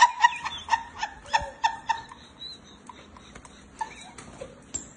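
Short bursts of laughter trailing off over the first two seconds, then scattered light clicks and scuffles of a small dog playing on a tile floor.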